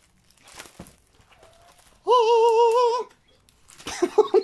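A woman's voice sings out a loud, high 'ooh' held for about a second with a wavering pitch, followed near the end by short bursts of laughter. Before it comes the soft crinkle of a rolled diamond-painting canvas being unrolled.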